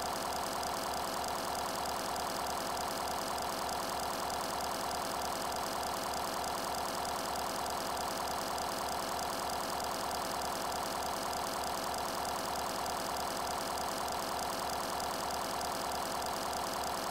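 A steady, unbroken mechanical drone like an idling engine, with a fast, even pulse of several beats a second.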